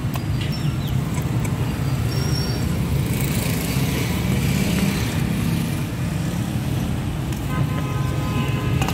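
Steady road-traffic noise of a busy street, with vehicle engines running as a continuous rumble. A higher pitched tone joins briefly near the end.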